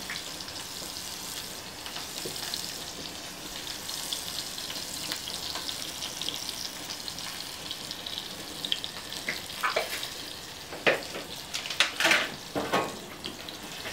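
Chopped onions frying in hot olive oil in a ceramic dish on a gas grill, a steady sizzling hiss. A few sharp clicks and knocks come near the end.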